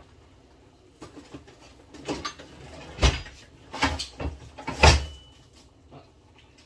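Household handling noises: a string of knocks and clatters as things are picked up, moved and set down, with two heavier thumps about three and five seconds in.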